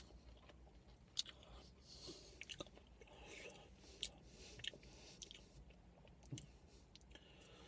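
Faint chewing of a mouthful of breaded, soft-cheese snack, with a few small sharp mouth clicks scattered through it, the clearest about a second in.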